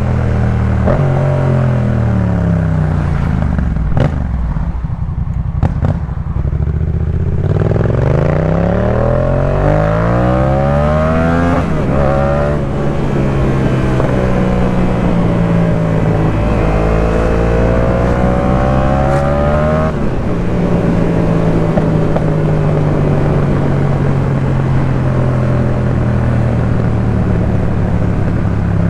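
Yamaha MT-07 parallel-twin engine through a Jeskap K4 full aftermarket exhaust, heard from the rider's seat. It slows to low revs with a few sharp clicks, then accelerates hard with its pitch climbing through two upshifts, and settles into steady cruising near the end.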